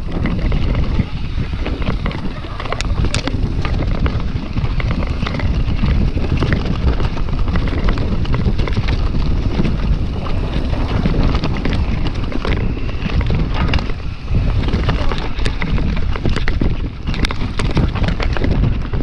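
Wind buffeting the rider's camera microphone on a fast mountain-bike descent, with tyres rumbling over the dirt trail and the bike rattling and knocking over roots and rocks.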